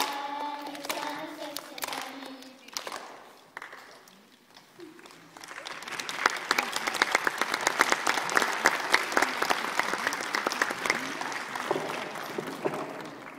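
A group of children sing a held final note, clapping along. After a short lull, an audience applauds for about seven seconds, then the applause dies away.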